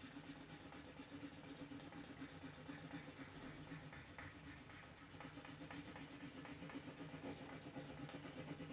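Faint rubbing of a soft watercolour pencil being stroked quickly back and forth over paper while colouring in, the pencil worn down.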